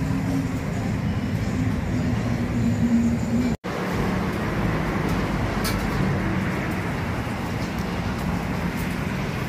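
Steady ambient rumble of traffic around an open-air street-food eatery, with a low hum under it. The sound drops out for an instant about three and a half seconds in.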